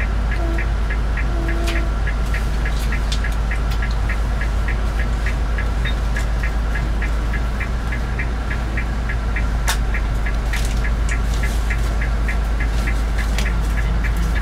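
A vehicle engine idles with a steady low rumble, heard from inside the bus cabin. Over it runs an even, fast ticking of about three ticks a second, with a couple of louder single clicks.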